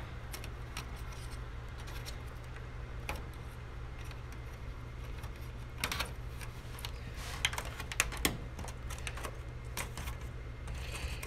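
Scattered light plastic clicks and taps from hands handling a TV's plastic back housing and its wiring, a few close together past the middle, over a steady low hum.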